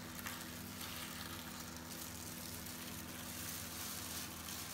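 Tesa Easy Cover masking tape being peeled slowly off a tiled wall and ceiling edge, giving a steady soft crackle as the adhesive lets go, with the attached plastic sheeting rustling. A low steady hum runs underneath.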